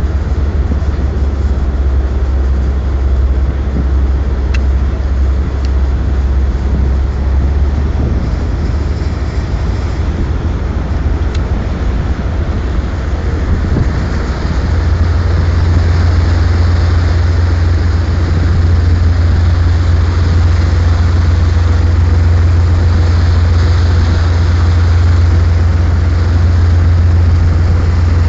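A tugboat's diesel engines running with a heavy, steady low drone. The drone grows louder about halfway through.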